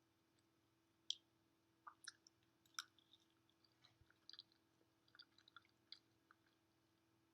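Faint chewing and wet mouth clicks of a person eating mac and cheese, a scattered series of short soft smacks over a low steady hum.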